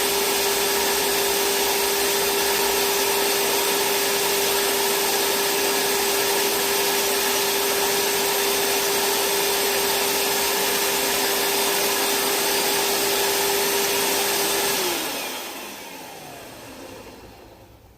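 Vacuum cleaner running steadily, a loud rushing of air with a constant whine; about fifteen seconds in it is switched off and the motor winds down, the whine falling in pitch as the sound fades away.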